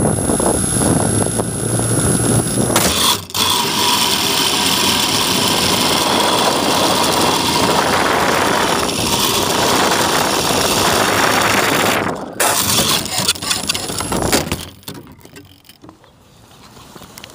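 E-flite 380 brushless outrunner and propeller of a GWS Slow Stick model plane running loudly as the plane skims and rolls along pavement, mixed with wind and rolling noise. The noise stops sharply near the end and it goes much quieter.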